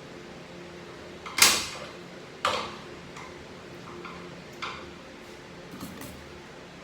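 Metal transmission parts and hand tools knocking and clinking on a workbench during teardown of a ZF 6HP21 automatic transmission: a loud clank about a second and a half in, another a second later, then lighter knocks.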